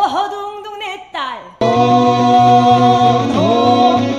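Female pansori singer's voice, first unaccompanied with sliding, bending pitch, then, about a second and a half in, guitar accompaniment comes in with an even pulse while she holds a long note.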